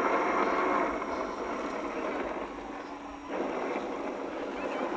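Steady whirring of small electric motors with two faint high whines. It dips briefly a little after three seconds in, then picks up again.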